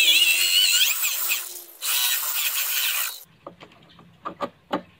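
Electric drill boring into a plywood frame, its motor whine wavering under load. It stops briefly at about one and a half seconds, runs again, and stops just after three seconds, followed by a few light clicks and taps.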